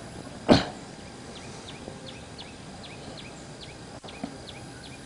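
A bird calling in a quick series of short, high, falling chirps, several a second, starting about a second in, over faint outdoor background noise. About half a second in there is one brief, loud thump, the loudest sound here.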